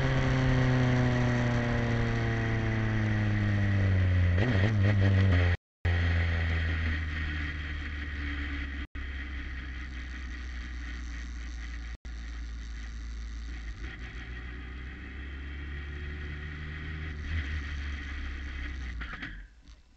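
Formula 3 car's engine heard from onboard, its revs falling as the car slows from about 86 km/h, then running low and steady at pit-lane speed. The recording drops out briefly three times, and the sound cuts off suddenly near the end.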